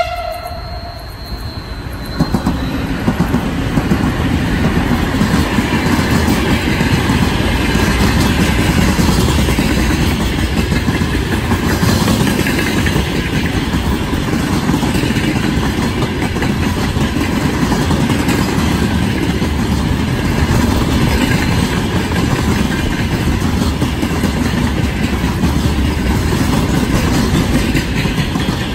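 Heavy freight train passing close by: a horn blast cuts off about a second in, then the rumble and clickety-clack of the wagons rolling over the rail joints builds over a few seconds and holds steady.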